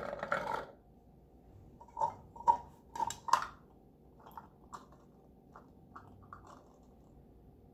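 Cooked chickpeas being scooped with a plastic measuring cup and poured into a plastic food processor bowl: a few sharp clicks and knocks about two to three seconds in, then lighter scattered ticks.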